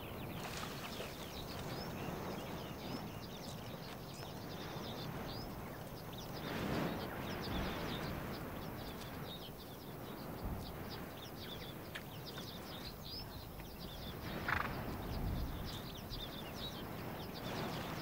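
Przewalski's horses feeding in grass, with two brief louder noises from the herd about seven and fifteen seconds in, over continual high chirping of small birds.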